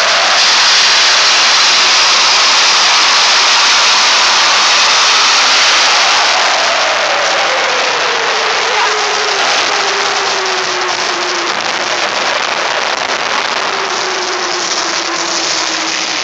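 Jet engine of a jet-powered Smart car running loud, a dense rushing roar with a whine in it that falls slowly in pitch. The sound eases a little in its second half as the car moves off.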